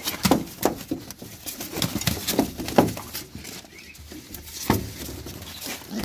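Pigeons flapping and scuffling in a cage as they are handled: a run of irregular knocks and wing flutters, with a couple of louder thumps.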